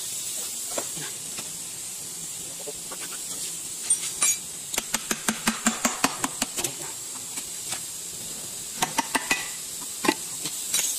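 A quick run of light metallic clicks and taps from a hand tool on the engine block, with a few more clicks near the end, over a steady background hiss.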